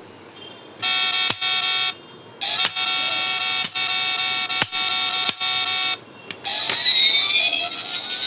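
A loud electronic buzzing tone sounds for about a second, stops, then sounds again for about three and a half seconds with several sharp clicks through it. Near the end it gives way to electronic tones sliding up and down in pitch.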